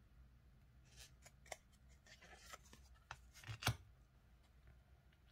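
Thin, high-gloss round oracle cards sliding and tapping against each other as a card is moved off the front of the deck: faint rustles and light clicks, with one sharper click about two-thirds of the way in.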